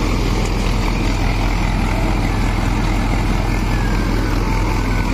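Sonalika Tiger DI 55 tractor's four-litre diesel engine running steadily under load while driving a straw reaper, with the reaper machinery adding a dense rushing noise. The engine holds its speed without bogging down.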